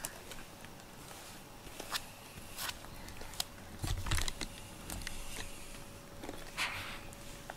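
A cat moving right up against the microphone: faint scattered clicks, taps and rustles, with a soft thump about four seconds in.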